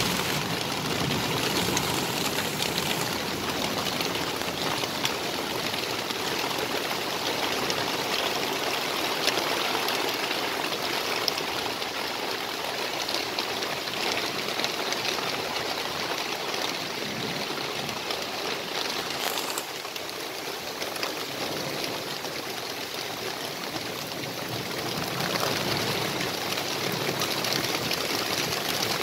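Heavy rain pouring down in torrents: a steady, dense rush that eases slightly about twenty seconds in and then builds again.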